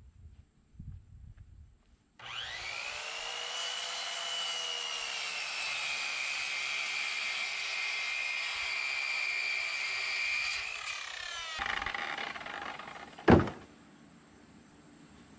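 Handheld power tool working on timber framing: it spins up, runs steadily for about eight seconds with its pitch sagging slightly under load, then winds down. A single sharp knock follows a couple of seconds later.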